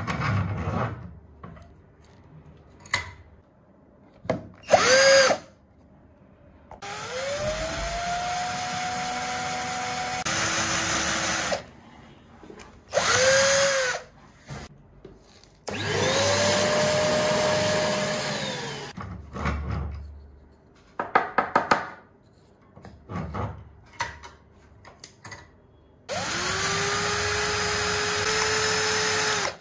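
Electric drill boring into the end grain of a wooden dowel with a twist bit, in several runs of a few seconds each: each time the motor spins up to a steady whine and then cuts off. Short bursts and a quick run of clicks fall between the runs.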